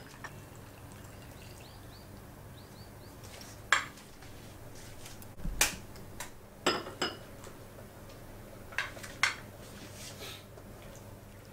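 Dishes and cutlery clinking: a handful of separate sharp clinks and knocks of plates, bowls and spoons, over a faint steady low hum.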